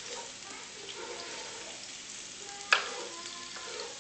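Chopped onions sizzling in olive oil in a frying pan as a spoon stirs them, with one sharp knock of the spoon against the pan near the end.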